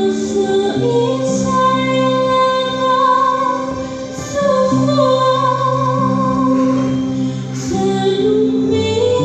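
Music: a woman singing a slow melody over long held chords that change every second or two.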